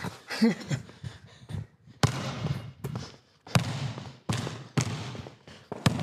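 Basketball being dribbled on a hard indoor court floor: a run of sharp single bounces starting about two seconds in, each ringing briefly in the hall.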